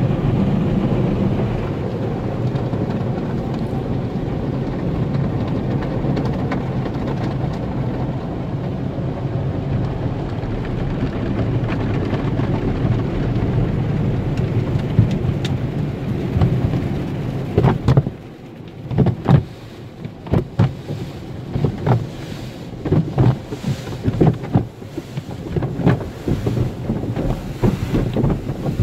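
Automatic car-wash water spray and foam pouring steadily over the car, heard from inside the cabin; after about eighteen seconds the rush drops away and the cloth wash strips slap and thud irregularly against the body and glass.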